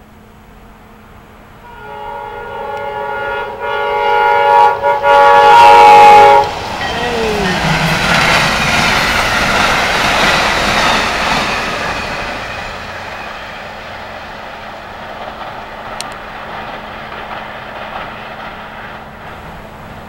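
An Amtrak locomotive's Nathan K5LA five-chime air horn sounds one loud long blast, broken by two brief gaps near its end, with its pitch dipping as it goes by. Then the passenger train rushes past with wheel and rail noise that slowly fades.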